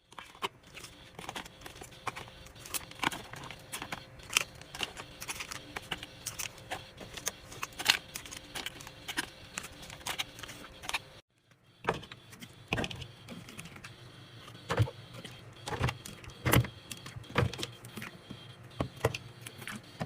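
Containers and groceries being handled and set down during fridge and pantry restocking: a steady run of irregular clicks, taps and knocks, with a brief break about eleven seconds in.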